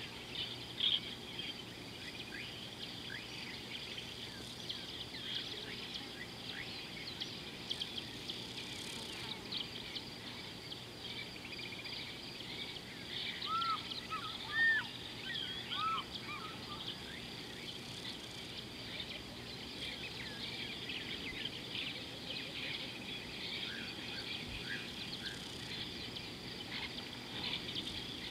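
Steady riverside chorus of insects and frogs: a dense mass of short, rapid chirps. About halfway through, a few short bird calls rise and fall above it.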